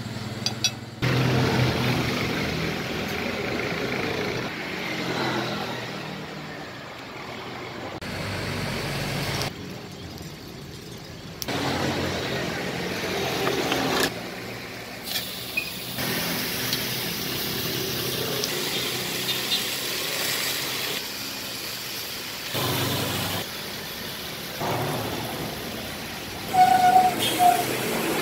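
Roadside ambience with traffic passing and voices in the background, broken by several abrupt cuts, with a brief louder noise near the end.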